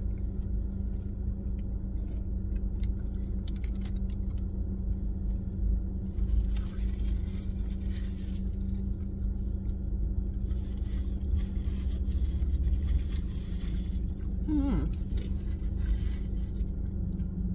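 Steady low rumble and hum inside a car's cabin, with soft chewing and light crackles of food and wrapper. A brief hummed voice sound comes about three-quarters of the way through.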